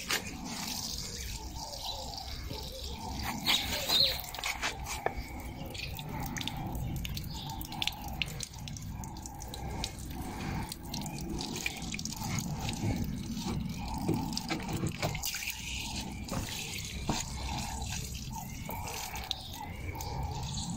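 Water pouring in a thin stream from a car door's drain hole and splattering and dripping into a puddle on brick paving, with many small drip ticks over a steady trickle. A short louder sound about four seconds in.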